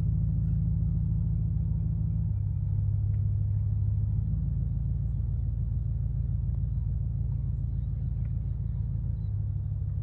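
An engine running steadily with a low hum, its pitch shifting slightly about two seconds in.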